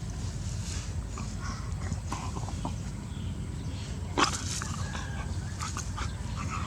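Puppy making small sounds over a steady low rumble, with one sharp knock about four seconds in.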